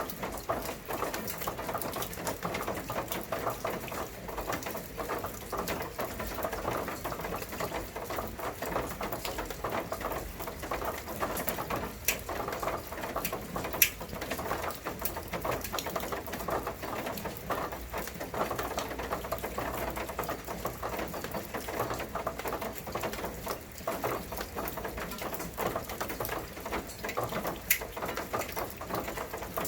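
Steady rain pattering, a dense run of small drop hits, with a few sharper, louder drops standing out now and then.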